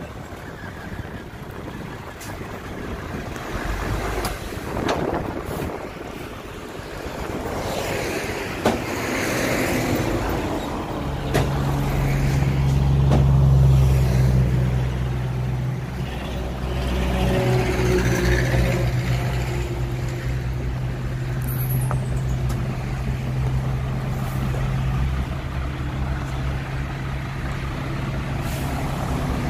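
Hyundai 5-ton dump truck's diesel engine running, with a steady low hum that sets in about eleven seconds in and is loudest shortly after as the truck drives forward with its bed raised. Before that there is mostly an even rushing noise with a few faint knocks.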